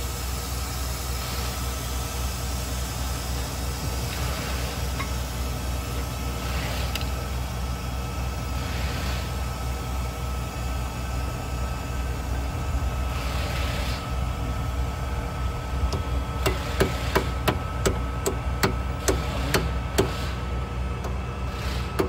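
Sharp metallic taps, about two a second, begin about three-quarters of the way through as hands work the pads and hardware of a rear disc brake caliper. A steady low hum runs underneath.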